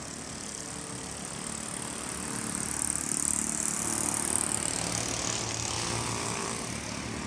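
Street traffic: a vehicle's engine and tyre noise swells up, passing close about three to four seconds in, then fades, over a low steady engine hum.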